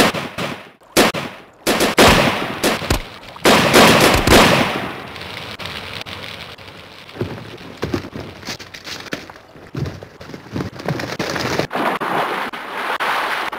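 Gunfire: a rapid series of loud shots and blasts in the first few seconds, then scattered shots over a steady hiss.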